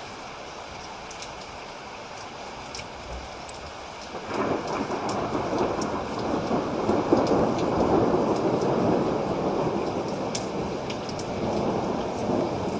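Steady rain with scattered sharp drips, then a long roll of thunder that builds about four seconds in, peaks a few seconds later and keeps rumbling.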